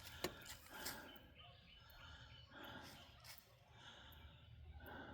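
Near silence: faint background sound with a few soft clicks.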